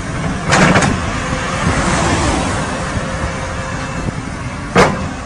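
Road traffic: a car drives past close by while a heavy truck's engine runs low in the background. There is a louder rush about half a second in and a short, sharp knock near the end.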